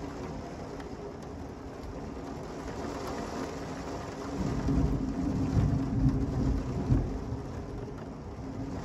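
Steady rain falling, with a low roll of thunder that builds about four seconds in, rumbles for about three seconds and fades back into the rain.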